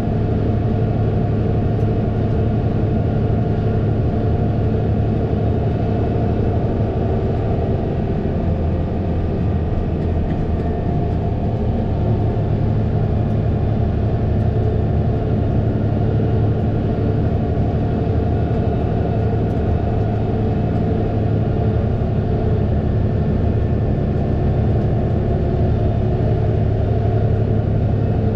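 Fendt 936 Vario tractor engine running steadily at constant speed, a low even hum without changes in pitch.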